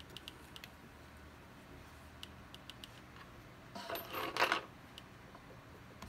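Faint light clicks, a few near the start and a few more about two seconds in, then a short rustling scrape about four seconds in: hands handling parts and cables inside an open laptop.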